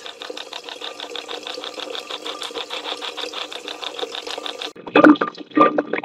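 Spirit-box noise running as fast, choppy, pulsing static with a steady hum under it. About five seconds in it cuts to a muffled, filtered playback of garbled voice-like fragments: the noise-filtered 'spirit' response, captioned 'I was struggling'.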